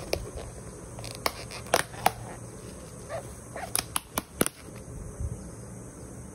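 Clear plastic takeaway food container being opened by hand: sharp clicks and crackles of the snap-on lid, a few about a second in and a quick cluster at about four seconds as the lid is peeled off.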